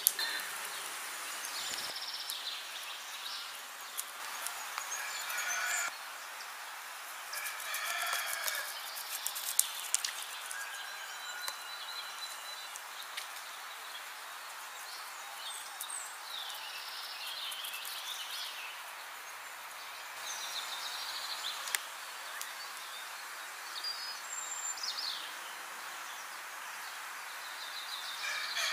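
Outdoor ambience: steady background noise with scattered bird chirps and calls coming and going.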